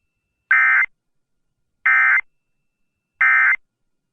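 Three short bursts of EAS end-of-message data tones (SAME digital code), each about a third of a second long and a bit over a second apart, signalling the end of the emergency alert broadcast.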